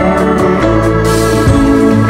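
Background music: a loud pop track with sustained keyboard chords over a steady bass line.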